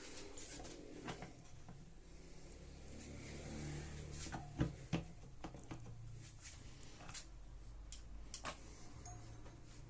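Scattered clicks and light knocks of small engine parts being handled and fitted by hand, the sharpest two about halfway through.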